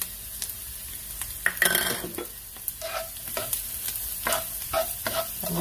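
Chopped onion and sliced garlic sizzling in hot oil in a nonstick frying pan while a spatula stirs them, its scrapes and taps against the pan scattered over the steady sizzle, with a denser burst of scraping about a second and a half in.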